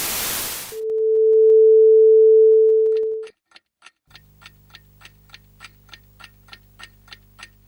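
A hiss cuts off, then a loud steady electronic beep holds for about two and a half seconds. Then a clock ticks about three times a second over a faint low hum.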